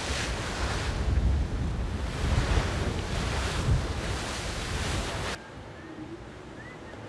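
Wind buffeting the microphone over the rush of the sea aboard a Volvo Ocean 65 racing yacht under sail, swelling and easing in gusts. It cuts off suddenly about five seconds in, leaving a much quieter hiss.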